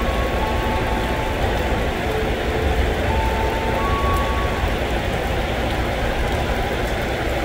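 Heavy rain falling steadily, with the low rumble of a JR 205 series electric commuter train moving off along the tracks. A few short, steady high tones sound in the first half.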